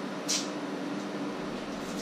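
Steady mechanical hum in a small kitchen, with one short scrape about a third of a second in.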